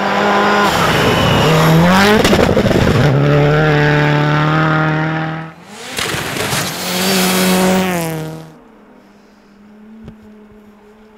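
Rally car engines at high revs on a snowy stage: one car's engine dips and climbs in pitch through gear changes, then, after a short drop, another car's engine revs hard. About eight and a half seconds in it falls away to a faint distant engine hum.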